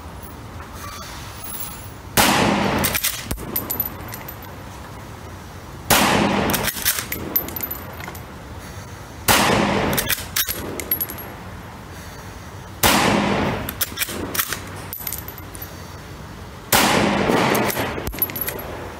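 CZ 527 bolt-action carbine in 7.62x39 firing five shots, one every three and a half to four seconds, each shot ringing on under a metal range roof. Sharp clicks of the bolt being cycled come between the shots.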